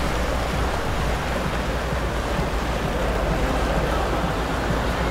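Steady rush of wind and water noise with a low rumble underneath, with no distinct events.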